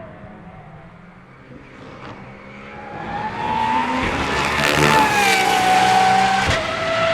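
Pagani Huayra R Evo's naturally aspirated 6.0-litre V12 running on track. Its sound swells from fairly quiet to loud over a few seconds, and a high whine in the note falls in pitch at the loudest point. The sound drops abruptly near the end.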